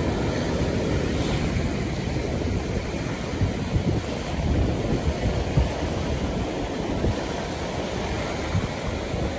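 Ocean surf breaking and washing on a beach, a steady rush of waves, with wind buffeting the microphone.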